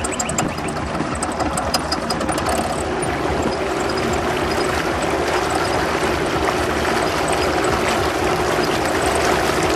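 Boat's outboard motor running steadily.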